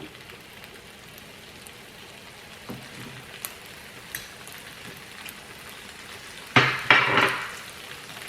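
Close-miked mouth sounds of eating collard greens: soft wet chewing and smacking with a few small clicks, and a louder burst of mouth noise about six and a half seconds in.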